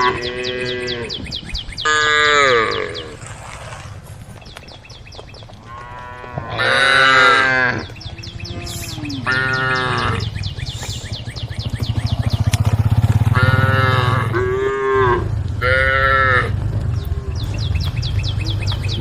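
Several cows mooing one after another, about nine drawn-out calls of a second or two each, some higher and some lower in pitch. A low steady hum sits under the calls in the second half.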